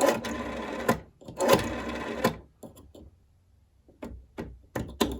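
Rotary telephone dial spinning back after being wound, twice, each return a whirr of about a second ending in a click. A quiet gap follows, then a run of light clicks near the end as the dial is worked again.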